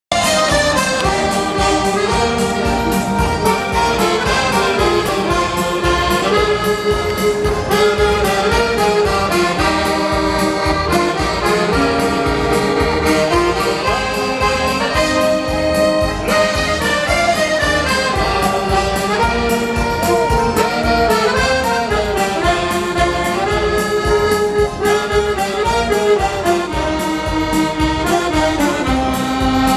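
Live dance-band music playing a tune over a steady beat, accompanying a chain dance.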